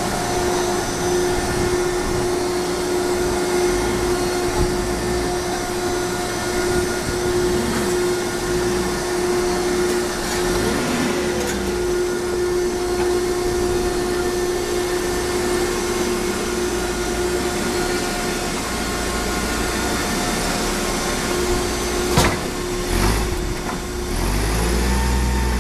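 Baling machine running with a steady, even-pitched hum, with a single sharp knock about 22 seconds in.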